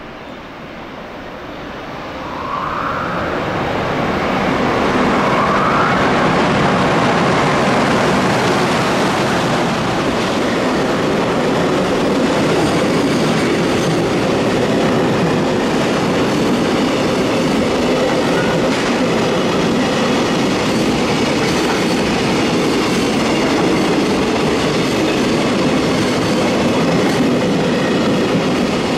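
EH500 electric locomotive and a long train of container flat wagons passing on the station tracks, growing louder over the first four seconds as the locomotive arrives. Then a steady rumble of wheels on rails as the container wagons roll by. Two brief rising whines sound early, about two and five seconds in.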